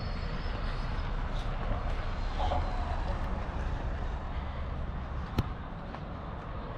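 Steady vehicle road noise with a low rumble. A single sharp click comes about five and a half seconds in, and the deepest rumble eases after it.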